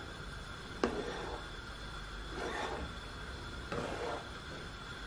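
Wooden spoon stirring a thickening caramel mixture in a saucepan, scraping the pan in slow strokes, with a light knock of the spoon about a second in.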